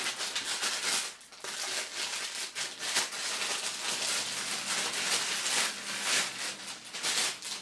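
Plastic bag wrapping a new tripod crinkling and rustling as the tripod is handled, with irregular crackles throughout.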